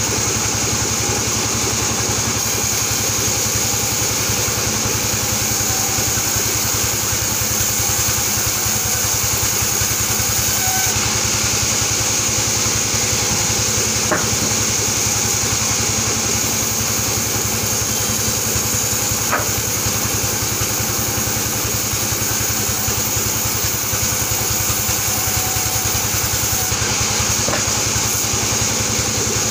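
Large vertical band saw running steadily while it rips albasia timber into boards: a constant machine hum with a high whine over it, and a couple of light knocks about halfway through.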